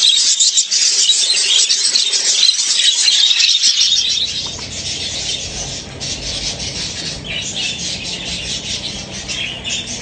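A flock of budgerigars chattering in a dense, high-pitched, continuous twitter. About four seconds in, a steady low hum joins underneath.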